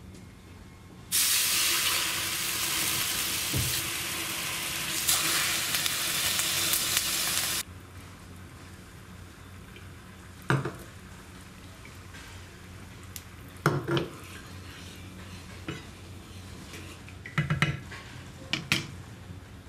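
Water poured into a hot granite-coated non-stick frying pan, hissing loudly for about six seconds before cutting off abruptly. After that the water simmers quietly, with a few short knocks of a spoon against the pan as it is seasoned and stirred.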